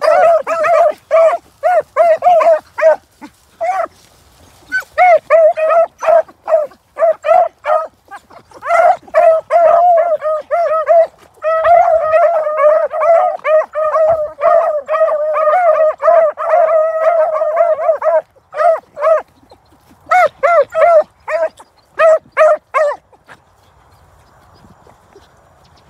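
A pack of beagles baying in short, high yips as they follow a scent along the ground. Several voices overlap into an almost unbroken chorus for several seconds in the middle, then thin back to scattered yips.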